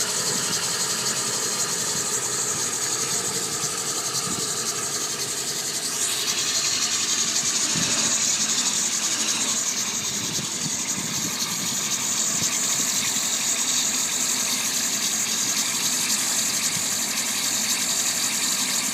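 1999 Ford F-250's 7.3 L Powerstroke turbo-diesel V8 idling after a cold start, with a steady high hiss over the engine sound.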